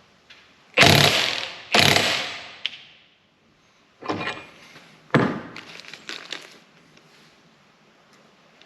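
Four heavy hammer blows on steel at the front-axle U-joint, each ringing out briefly: two about a second apart near the start, then two more about four and five seconds in, followed by a few lighter metal clinks.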